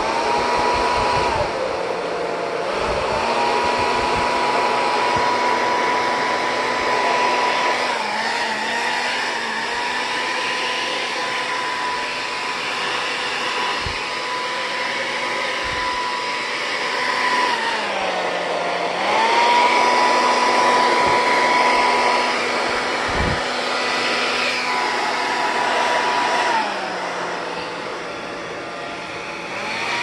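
Handheld hair dryer blowing steadily, a rush of air over a motor whine. The whine sags in pitch and climbs back three times, about two seconds in, around the middle, and near the end.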